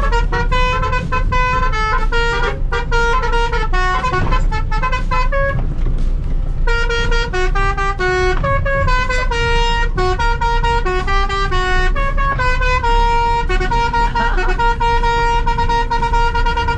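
Dump truck's Basuri musical horn playing a tune, a run of held notes stepping up and down, with a brief pause about six seconds in. The truck's engine and road noise sit low underneath.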